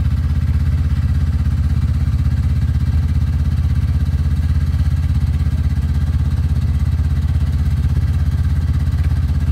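Yamaha Venture snowmobile engine idling steadily.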